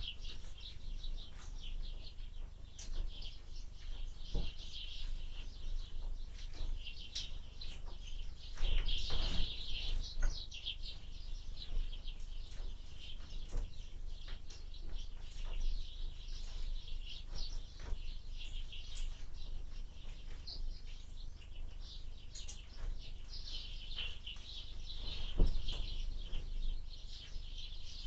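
Small birds chirping rapidly at a window feeder, with scattered sharp taps and a thump near the end, over a steady low wind rumble. The chirping is busiest about nine seconds in.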